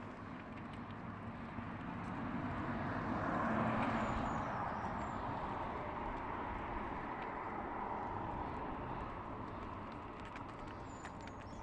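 A vehicle passing by: a rushing noise that swells to a peak about four seconds in and then slowly fades away.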